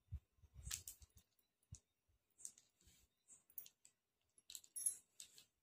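Mascara tube and small plastic makeup items being handled: faint, scattered little clicks and light rustling.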